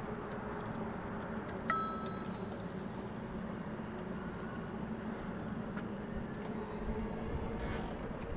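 Bicycle rolling along a paved trail with a steady tyre and wind noise, and a single bicycle-bell ding about two seconds in that rings briefly and fades.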